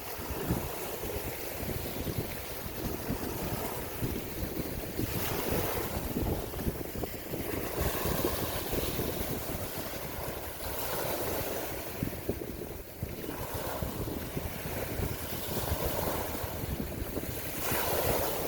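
Ocean waves washing onto a shore in repeated swells every several seconds, with wind buffeting the microphone as a low rumble.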